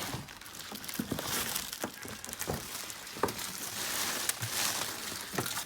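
Packaging being handled and unwrapped from around a new Philips air fryer: rustling with many small irregular clicks and knocks.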